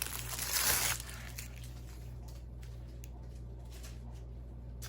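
Plastic packaging rustling for about a second as a diamond painting kit is handled, then a few faint clicks and light handling noises.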